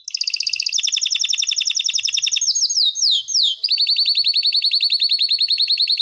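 SMS notification tone played by a phone app: a rapid, high-pitched chirping trill of about a dozen pulses a second. Around halfway through it breaks into a few quick falling sweeps, then goes on as a steady fast trill.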